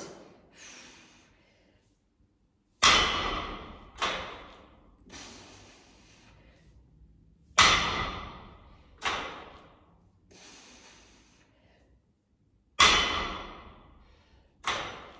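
Loaded steel barbell with 10 kg plates set down on a rubber gym mat three times, each touchdown a sharp clank with metallic ringing that fades over about a second, followed a second or so later by a smaller clank as the bar settles or is lifted again.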